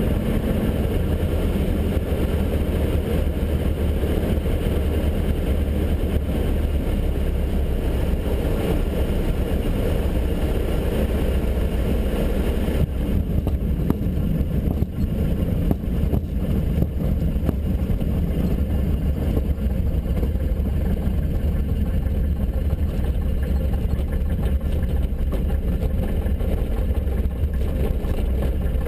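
Robin HR200 light aircraft's piston engine and propeller droning steadily, heard inside the cockpit during a landing on a grass strip. About halfway through the rushing hiss drops away as the aircraft touches down, a few knocks and rattles follow as it rolls over the grass, and the engine runs on at idle.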